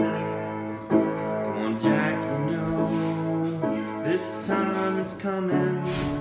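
Acoustic piano played with both hands: chords struck about once a second, each ringing on under the next.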